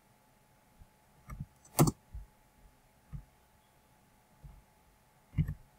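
Scattered clicks and taps of a computer mouse and keyboard, about seven in all, the sharpest and loudest a little under two seconds in.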